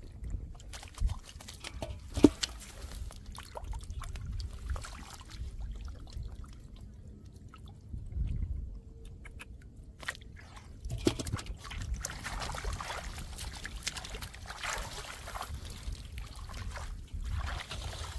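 Wet mud and shallow water sloshing and squelching as it is worked through by hand, with scattered clicks and a sharp knock about two seconds in.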